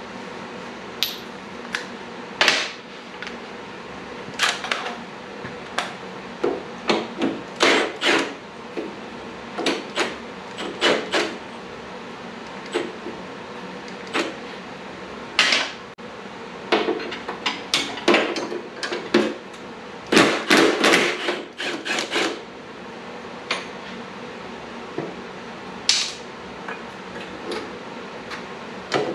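Workshop tool clatter: irregular sharp metallic clicks and clanks of sockets and a cordless impact wrench being handled while the rear shock mounts of a motorcycle are unbolted, with a denser run of rattling about twenty seconds in.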